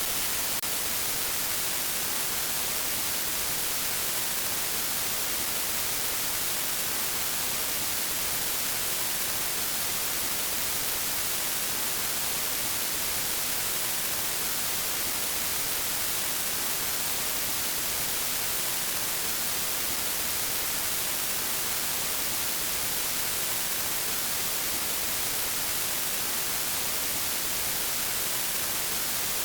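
Steady static hiss, strongest in the high frequencies and unchanging throughout.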